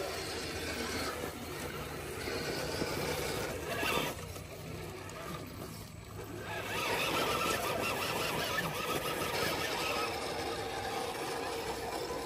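1/10-scale RC rock crawler's electric motor and gear drivetrain whining as it crawls over the trail. The whine drops back briefly partway through, then picks up again and gets louder about halfway in.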